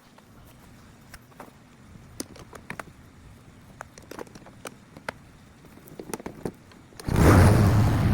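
A few scattered clicks and taps, then about seven seconds in a petrol lawn mower engine starts up suddenly and runs loudly.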